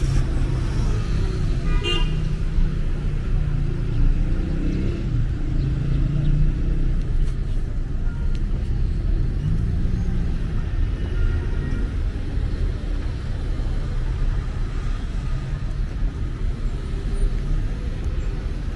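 City street traffic noise, a steady low rumble of car engines and tyres, with a brief car horn toot about two seconds in.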